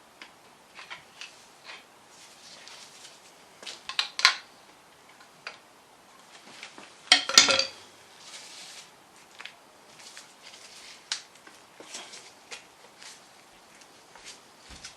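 Metal tools clinking and scraping on a Mini A-series engine's timing sprockets as they are pried loose. A sharp clatter comes about four seconds in, and a louder, ringing metallic clatter comes about seven seconds in, between scattered lighter clicks.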